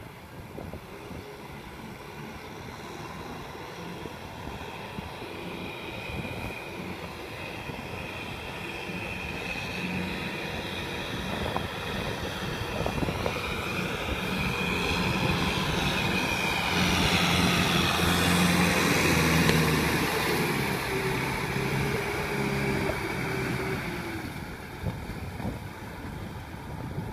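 Kubota M6040SU tractor's diesel engine working under load while its rotary tiller churns through a flooded rice paddy. The sound grows steadily louder as the tractor comes closer, peaks about two-thirds of the way through, then drops away near the end.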